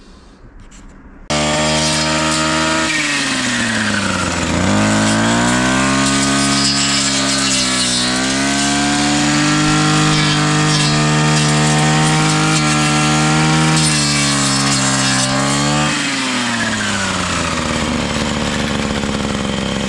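Petrol brush cutter (strimmer) fitted with a three-tooth cutting blade, its engine running loud and high while cutting dry weeds. The engine speed dips and climbs back a few seconds in, holds high, then drops to a lower speed near the end.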